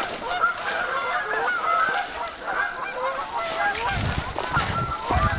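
A large flock of birds calling, with many short honking or yelping calls overlapping without a break. Low thuds come in near the end.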